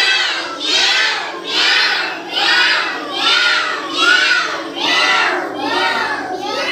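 A group of children calling out together in unison, a rising-and-falling vocal call repeated about once a second.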